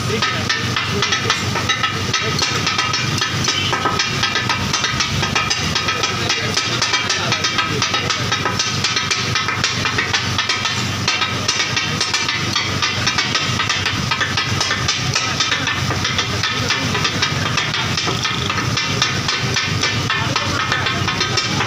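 Katakat: two metal spatulas rapidly chopping and scraping minced beef on a large flat tawa griddle, a fast continuous clatter of metal on metal, over the hiss and sizzle of the frying meat.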